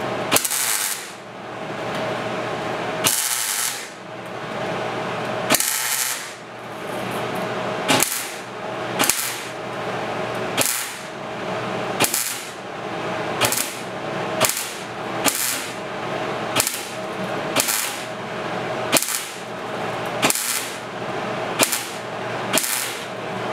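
Welder laying a series of tack welds on a steel patch panel. About sixteen short bursts, each under a second: the first few longer and a few seconds apart, then roughly one a second.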